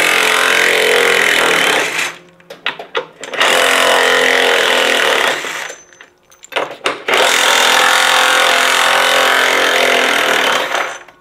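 Cordless impact driver with a 10 mm socket, run three times, undoing the screws that hold a washing machine's concrete counterweight. The third run is the longest, and there are a few small clicks in the gaps between runs.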